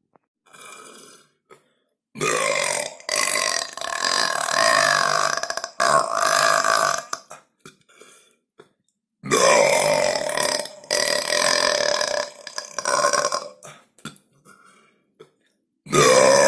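A person belching: two long, loud, drawn-out burps of about five seconds each, the first starting about two seconds in and the second at about nine seconds, with fainter short burps between them.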